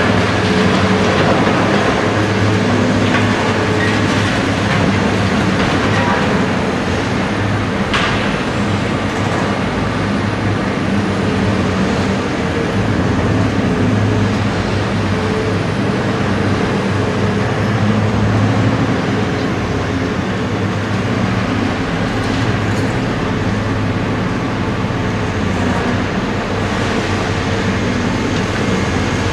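Liebherr R 964B hydraulic excavator's diesel engine running steadily under load while loading a dump truck, with a single sharp knock about eight seconds in.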